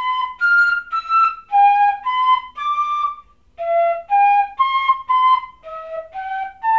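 Pífano (Brazilian fife) in C playing a short melodic passage, starting on G: separate tongued notes at about two a second, moving up and down, in two phrases with a brief break about three and a half seconds in.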